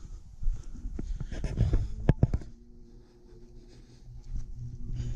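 Scratchy handling noise and low scuffs from a hand-held GoPro action camera being carried on foot, with a few sharp clicks a little over two seconds in. A faint steady low hum follows in the quieter second half.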